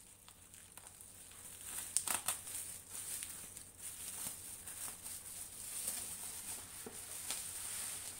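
Bubble wrap and packing tape crinkling as they are handled and cut open with scissors, with scattered sharp snips and crackles, loudest about two seconds in.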